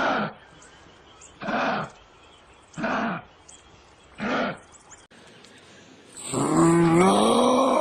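Kangaroo calling: four short grunts about a second and a half apart, then a longer pitched call that rises and falls, lasting nearly two seconds near the end.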